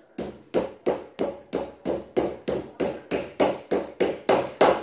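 Hammer tapping a white plastic fitting with metal pins into the particleboard of an IKEA Malm bed frame. The strikes are light and steady, about three a second, and grow louder toward the end.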